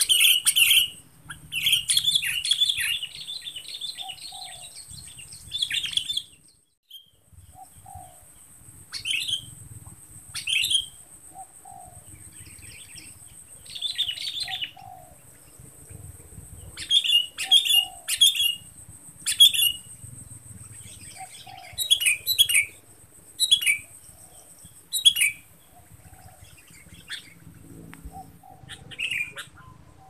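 Sooty-headed bulbul calling in short bubbly chirps: a dense run for the first few seconds, then phrases repeated every second or two. A steady high insect buzz runs underneath.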